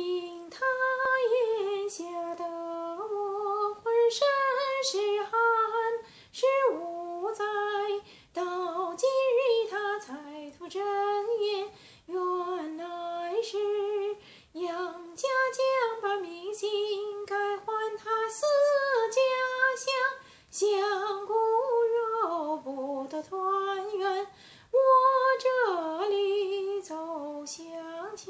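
A woman singing a Beijing opera passage alone, with no accompaniment, her voice sliding and wavering through long phrases broken by short pauses.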